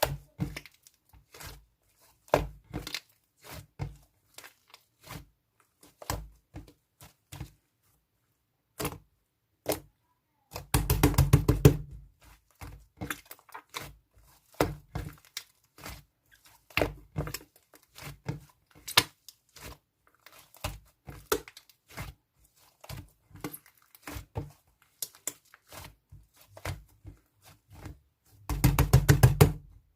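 Slime being mixed and squished by hand, making scattered wet clicks and pops, with two runs of rapid clicking about eleven seconds in and near the end.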